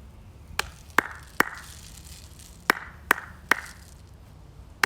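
Sharp percussion strikes, each with a brief ring, played in groups of three about 0.4 seconds apart: a rhythmic introduction to the song just before the singing comes in.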